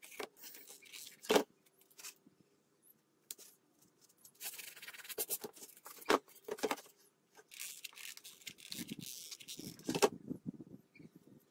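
Corrugated cardboard pieces being handled, slid and pressed together on a cardboard-covered table: rustling and scraping, with a few knocks as pieces are set down.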